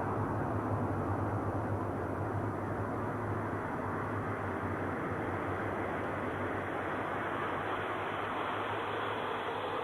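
Steady rumbling space-ambience drone given as the 'sound' of Saturn: an even wash of noise over a low hum that fades after the start, while the hiss slowly grows brighter.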